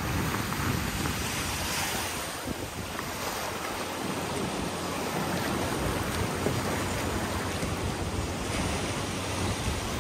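Small ocean waves washing up onto a sandy beach, a steady surf that swells and eases as each wave comes in, with wind buffeting the microphone.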